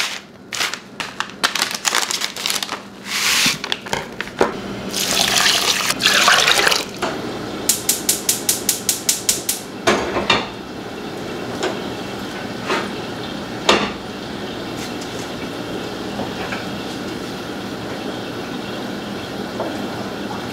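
Tap water running into a saucepan of rice for a couple of seconds, then a gas stove's igniter clicking rapidly, about five or six clicks a second for about two seconds. After that a steady low hiss, broken by a few sharp clunks of pans on the stove.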